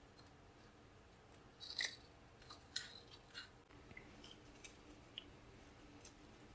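Faint scattered clicks and ticks of glass seed beads and thin beading wire being handled as a beaded berry is wrapped and shaped by hand, with the sharpest few clicks coming between about two and three and a half seconds in.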